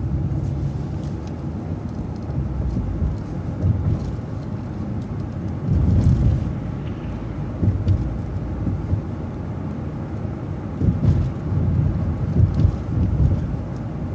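Road vehicle driving along a street: a continuous low rumble of engine and tyres that swells a few times, with scattered light knocks.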